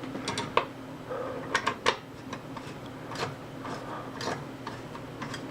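Irregular light clicks and ticks of a screwdriver turning long screws to fasten a CPU cooler down, over a steady low hum.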